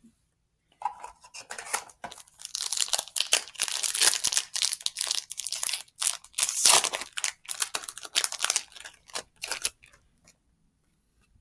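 Yu-Gi-Oh! Speed Duel booster pack's foil wrapper being torn open and crinkled by hand: a run of crackling, tearing noises that starts about a second in and stops shortly before the end.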